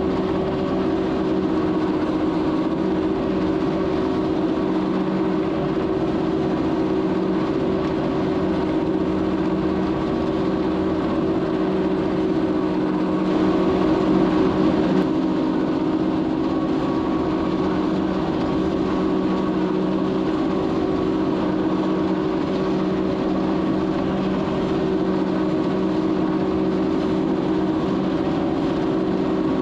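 Swaraj 969 tractor working under load, driving a four-row silage cutter through maize: a steady mechanical drone that swells briefly about halfway through.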